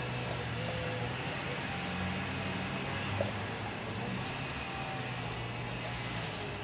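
Steady low hum and hiss of background noise, with one faint click about three seconds in.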